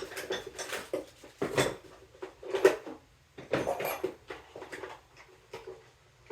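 Small hand tools and parts clattering and knocking in irregular strokes as someone rummages among them for a tool.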